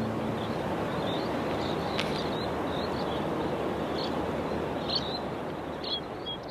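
Outdoor ambience: a steady rushing noise with short, high chirps from small birds scattered through it, easing down near the end.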